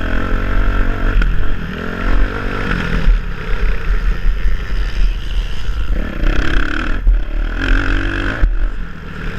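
Motocross dirt bike engine heard from the rider's helmet, revving up in pitch several times as the throttle opens and dropping off sharply when it is chopped between runs.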